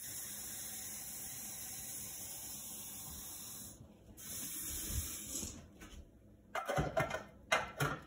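A steady hiss that breaks off a few seconds in, followed near the end by several clunks and knocks.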